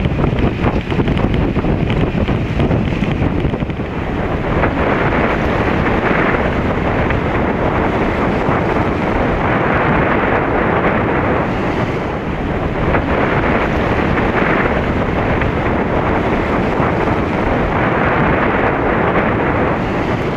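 Strong wind buffeting the microphone: a loud, steady rushing noise that brightens every few seconds.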